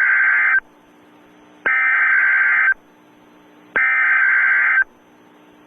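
Emergency Alert System SAME header data bursts over a NOAA Weather Radio broadcast: three bursts of buzzing data tones, each about a second long and about a second apart, with a faint low hum between them. The header encodes a coastal flood warning.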